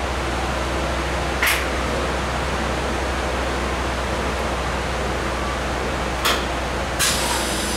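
CNC machining centre running after its program is started: a steady even hiss over a low hum, with a few short hisses, about a second and a half in and twice near the end.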